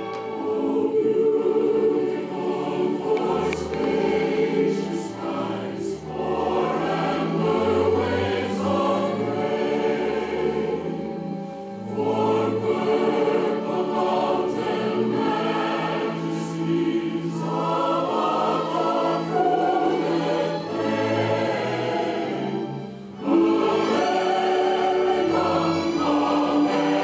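Choir singing to instrumental accompaniment: a show's recorded soundtrack playing over a theater's sound system, swelling louder near the end.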